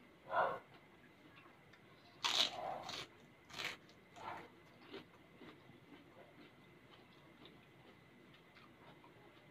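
A person eating close to the microphone, biting and chewing a mouthful of sticky rice with raw beef larb: a few loud mouth noises in the first five seconds, then only faint chewing ticks.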